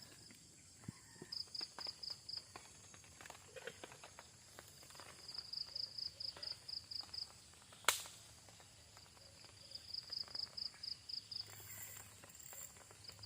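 High-pitched chirping in short trains of rapid pulses, about seven a second, repeating every three to four seconds, like a cricket or other insect calling. A single sharp click sounds about eight seconds in.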